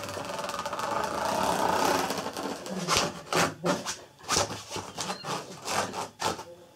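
Fingertip scratching and rubbing on the nylon mesh side of a playpen, a steady rustle for about three seconds, then a run of short taps and scrapes.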